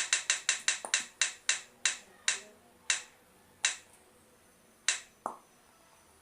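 Roulette wheel spinning down, its pointer clicking against the pegs: a fast rattle of clicks that spaces out into a few slow ticks as the wheel coasts to a stop about five seconds in.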